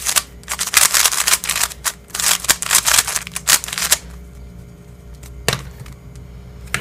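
Brand-new MoYu Guanlong 3x3 speed cube being turned for the first time out of the box: rapid clicking and clacking of its plastic layers for about four seconds, then a pause with a single click near the end.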